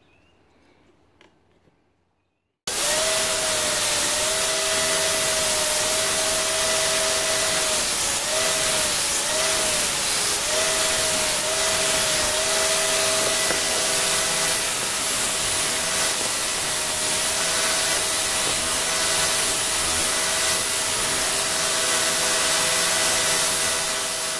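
Belt grinder running with a steady whine and hiss as a forged steel knife blade is ground against the belt. It starts abruptly about three seconds in, and the whine sags in pitch briefly several times in the middle.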